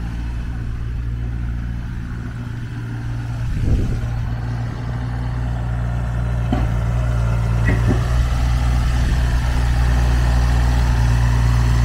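JCB 8018 mini excavator's diesel engine running steadily, with a short knock about a third of the way in and a couple of sharp clicks later. The engine gets gradually louder through the second half.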